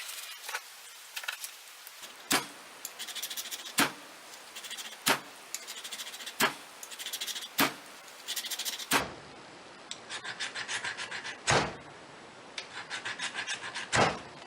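Ferro-rod fire starter built into a pocket knife being struck over and over with a metal striker: about eight sharp scraping strikes, each followed by a quick, fine, high-pitched crackling rattle.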